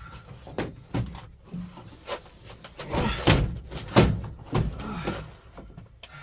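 Irregular knocks and bumps of a large plastic ceiling panel being pushed by hand up against the metal roof of a van, the loudest about four seconds in.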